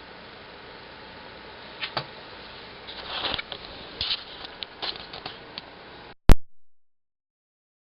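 Faint room hiss with a few light clicks and rustles of handling, then one sharp, loud click about six seconds in, after which the sound cuts off to total silence as the recording is stopped.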